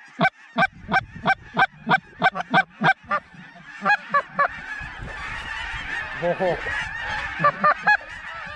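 Geese honking: a rapid run of loud, short honks, three to four a second, for about three seconds. Then a large flock overhead calls as a steady chorus, with a few more honks near the middle and toward the end.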